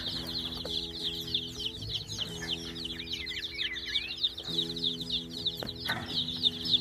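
A brood of five-day-old chicks peeping nonstop, a dense chorus of many short, high chirps overlapping.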